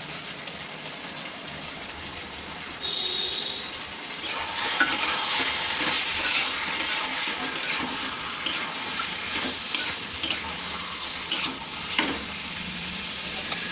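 Chicken and spice paste sizzling in a kadai while a metal spatula stirs and scrapes against the pan: the chicken being slow-fried in the masala (kosha). The sizzle and scraping grow louder about four seconds in, with sharp clicks of the spatula on the pan several times.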